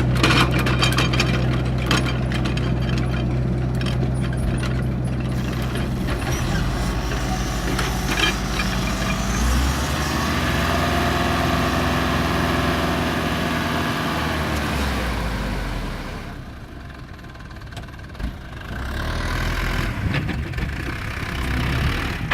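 A large engine running with a steady low note. About ten seconds in the pitch rises and falls again, then the sound drops away for a couple of seconds and picks up again.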